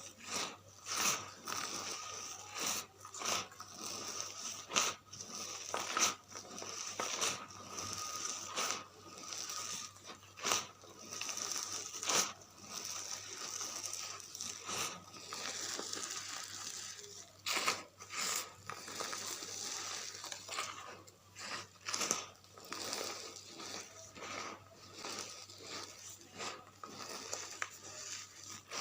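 Dry charcoal flower crumbling and being crushed: a continuous run of crunching and crackling, with sharper, louder cracks every second or two.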